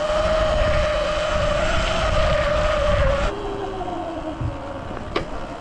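Electric dirt bike's motor whining steadily under throttle over the rumble of wind and tyres. About three seconds in, the throttle is let off and the whine drops to a lower, falling tone as the bike slows to a stop.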